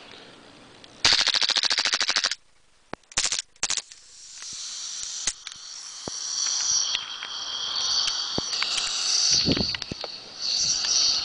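Taurus PT99 CO2 airsoft pistol firing a rapid full-auto burst of about a second and a half, then two short bursts. From about four seconds in comes a steady high hiss of CO2 escaping from the gun, a leak that empties the cartridge.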